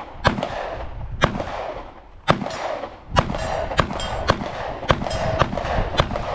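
A handgun firing a string of about nine shots, spaced irregularly about half a second to a second apart, each with a short echo.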